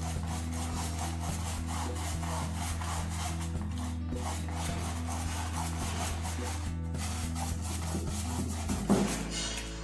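A stiff, flat hog-bristle brush scrubbing acrylic paint across a canvas in rapid repeated strokes. A single sharper knock comes near the end.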